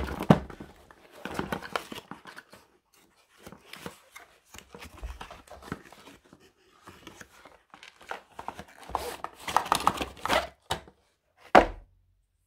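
Cardboard box being handled and opened: irregular scraping, sliding and rustling of cardboard as the inner packaging comes out, with a sharp knock at the start and another near the end.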